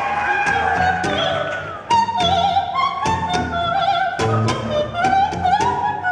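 Live concert music: a woman singing wordless, operatic vocal lines with a wide vibrato over struck accompanying chords, with an abrupt change about two seconds in.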